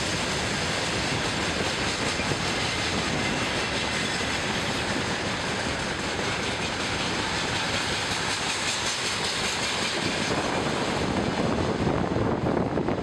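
Loaded freight wagons rolling past on the track: a steady rumble and rattle of wheels on rails. It grows louder and heavier about ten seconds in as the last hopper wagons pass close.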